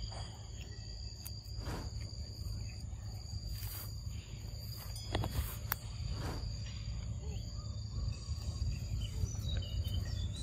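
Steady high-pitched insect drone, like cicadas or crickets, over a low constant rumble, with a few brief clicks.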